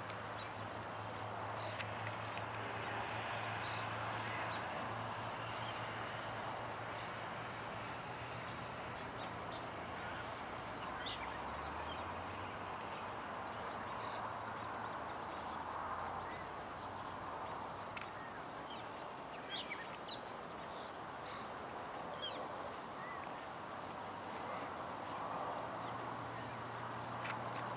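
Steady, high-pitched insect chirping, likely a cricket, repeating evenly at about two to three chirps a second. A few faint bird calls come through now and then.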